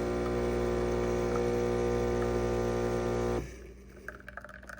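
Philips Baristina espresso machine's pump humming steadily while brewing espresso under pressure, cutting off suddenly about three and a half seconds in. Faint scattered ticks follow.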